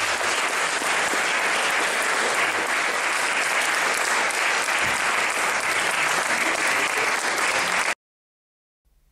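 An audience applauding steadily in a hall. The applause cuts off abruptly about eight seconds in.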